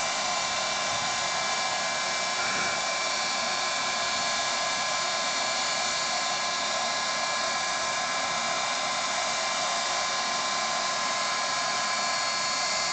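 Model helicopter's gas turbine engine running with a steady high whine over a hiss, several even tones held without change.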